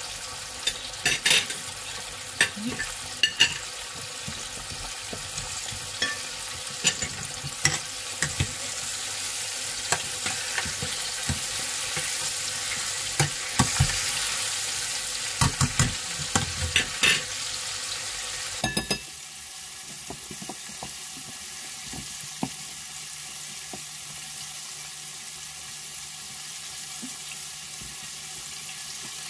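Breaded chicken deep-frying in a pot of hot oil: a steady sizzle, with metal tongs clicking and tapping against the pot over the first two-thirds. About 19 seconds in the sizzle suddenly drops to a quieter, even hiss.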